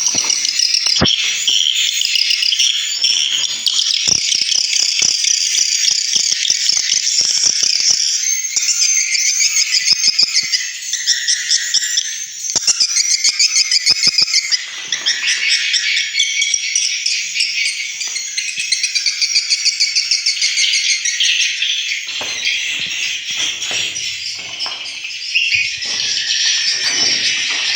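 Swiftlet lure calls played through the swiftlet house's tweeter speakers: dense, rapid high twittering chirps, continuous and layered, with scattered faint clicks.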